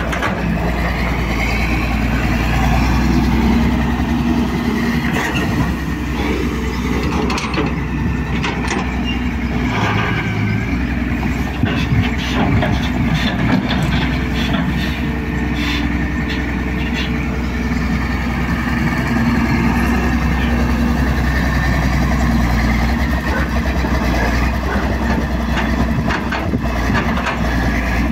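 Daewoo Solar 200W wheeled excavator's diesel engine running steadily under working load, its pitch rising and falling as the machine digs and swings. In the middle stretch comes a clatter of knocks and scraping as the steel bucket digs into the soil pile.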